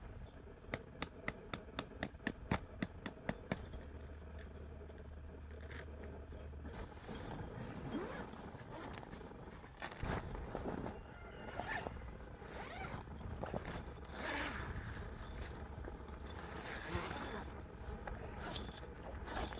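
A quick run of about a dozen sharp clicks or taps, roughly four a second, then irregular scraping and rustling handling sounds with short sweeping strokes.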